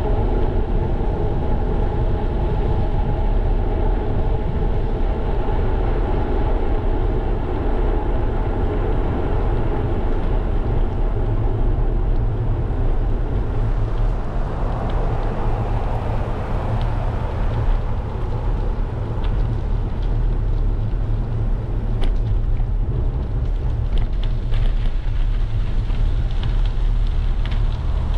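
Steady wind rumble on a GoPro's microphone while riding a bicycle along an asphalt road, with rolling tyre noise and a few faint ticks near the end.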